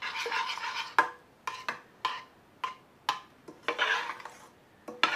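Metal spoon stirring thick pumpkin cream soup in a stainless steel pot, scraping the bottom and sides with sharp clinks against the rim about every half second.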